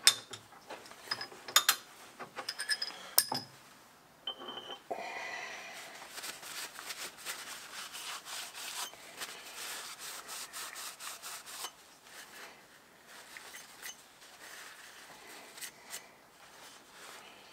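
A few light metal clinks, then a cloth rag rubbing and wiping a small machined piston clean. The steady rubbing is strongest for several seconds and grows fainter after about twelve seconds.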